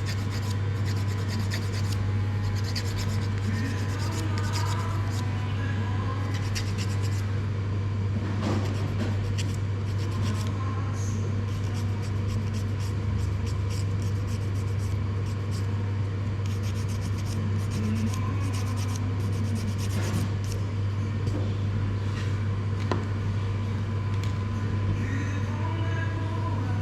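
Electric hair clippers buzzing steadily while cutting hair, with scratchy rasping of the blades through the hair and many short, crisp clicks.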